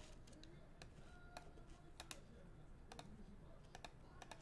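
Faint, scattered clicks of a computer keyboard and mouse, coming singly or in quick twos and threes.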